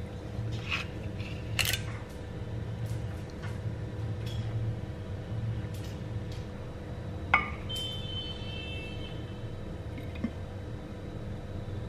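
Kitchen handling sounds: light taps and clinks of a bowl, spoon, glass jars and an oil bottle on a counter. One sharp click about seven seconds in is followed by a brief ringing, over a steady low hum.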